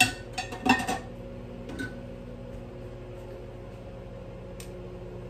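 A metal utensil clatters against a pan several times in quick succession, then knocks once more, as a cooking steak is checked. A steady appliance hum with a few held tones runs beneath.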